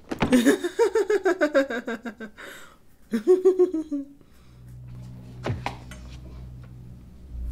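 A woman laughing: a long run of quick ha-ha pulses that fall in pitch, then a shorter burst of laughter about three seconds in, fading to a faint low hum.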